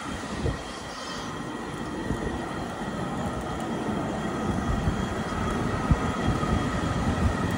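Pempek frying in oil in a small pot on a portable gas camping stove: a steady sizzle and rumble that slowly grows louder, with a few small pops.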